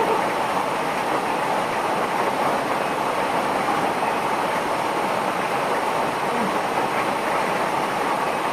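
Portable torpedo gas stove burner running with a steady rushing roar under a cooking pot.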